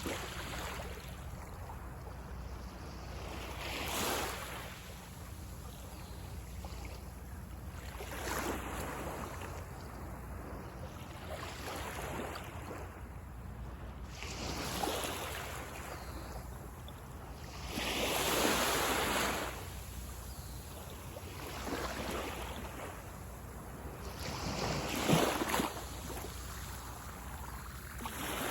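Waves breaking and washing up on a beach, each one rising as a swell of surf every three to four seconds over a steady low rumble.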